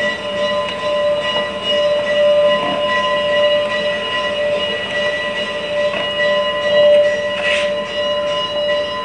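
HO-scale model train running on the layout: a steady whine made of several pitched tones, unchanging throughout, over a faint rolling noise.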